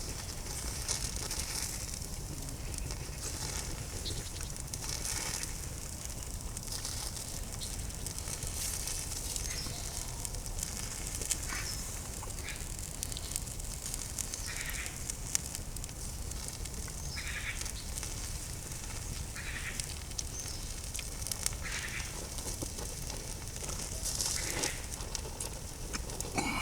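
Campfire crackling steadily, with scattered sharp pops.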